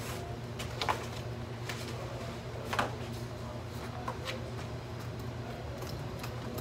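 Sheets of paper being handled and shuffled at a desk: short rustles and crinkles, the loudest about a second in and near three seconds, over a steady low hum.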